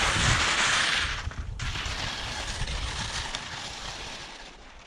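Splitboard sliding and carving on crusty spring snow: a loud scraping hiss for the first second and a half, then a softer hiss that fades toward the end, with wind rumbling on the microphone.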